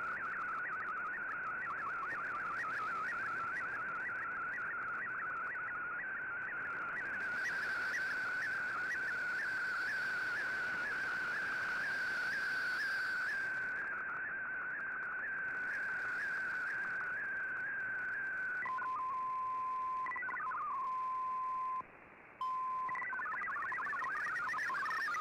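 Shortwave digital-mode audio from an Icom IC-R8600 receiver: an MFSK picture transmission, a single warbling tone whose pitch shifts with the image brightness, over receiver hiss. About 19 seconds in the picture tone stops. A steady lower beep with short breaks follows, and about 23 seconds in fast-hopping MFSK text-data tones begin.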